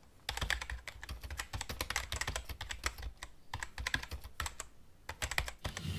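Computer keyboard typing: a rapid, irregular run of key clicks, used as the sound of text being typed onto the screen.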